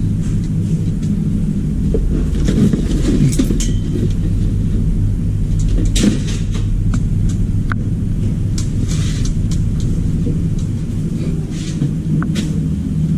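A steady low mechanical hum runs throughout, with scattered clicks, knocks and rustles of scrap parts and cardboard being handled and shifted.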